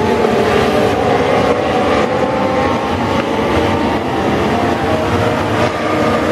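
A pack of Legends race cars at speed, several high-revving motorcycle-based engines running together, their pitches wavering up and down as the cars pass.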